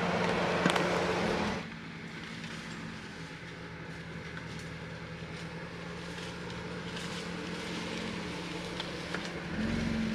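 Jeep engine running at a slow crawl on a rough trail, a steady low note. It drops off abruptly about a second and a half in, then builds again near the end as the Jeep comes closer.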